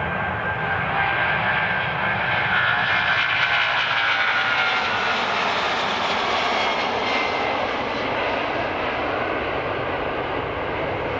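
Twin jet engines of a Boeing 777-200ER at takeoff thrust as the airliner lifts off and climbs. A loud, steady rushing with a high whine that drifts slightly lower and is loudest a few seconds in.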